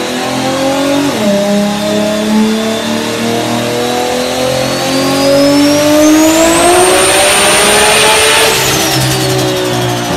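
Toyota Supra MK4's 2JZ inline-six at full throttle in a dyno pull: the revs drop with a gear change about a second in, then climb hard with a high whine rising alongside, peak and hold for a moment, and fall away as the throttle is lifted near the end.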